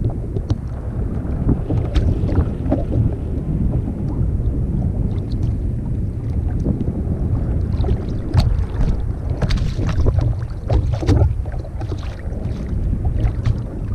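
Wind buffeting the microphone in a steady low rumble, with water slapping against a kayak hull and scattered light knocks.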